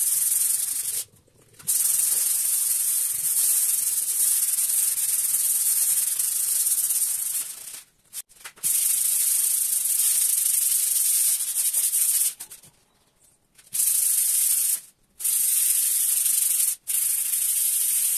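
Hand sanding with 320-grit sandpaper over a stone-chip textured coating on a car-audio speaker rack: a steady, scratchy hiss in long runs of strokes, broken by several short pauses. It is a light scuff-sand to knock down the roughness of the texture before painting.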